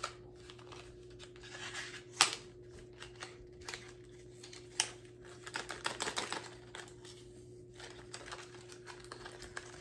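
Small plastic packaging being handled and worked open, with scattered clicks, light crinkling and rustling. Two sharper clicks come about two and five seconds in, and a faint steady hum runs underneath.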